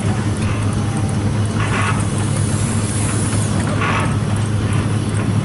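Steam traction engine driving a belt-powered threshing machine: a steady low mechanical hum, with a short rushing surge about every two seconds.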